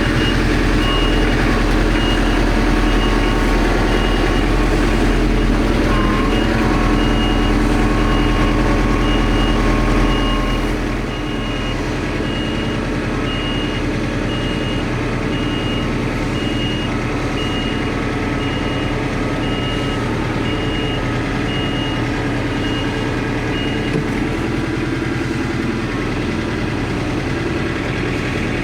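An engine running steadily, with an evenly repeating high beep that stops about 24 seconds in. The engine gets a little quieter about 10 seconds in.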